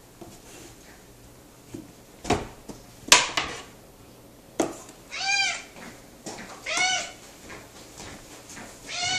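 Domestic cat's loud welcome-home meows: three long meows, each rising then falling in pitch, the first about five seconds in and the last starting near the end. A few sharp knocks come before them, the loudest about three seconds in.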